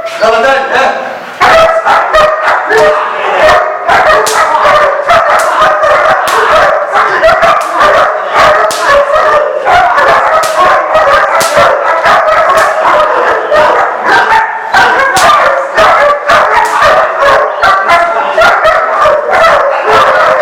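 Young puppy barking rapidly and without pause in high-pitched yipping barks, aggressive barking at an attacker during protection training. Sharp cracks run through the barking.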